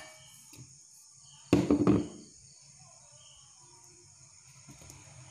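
A short clatter of several close knocks about one and a half seconds in, as lumps of jaggery are dropped into a steel mixer-grinder jar. Crickets chirr steadily in the background.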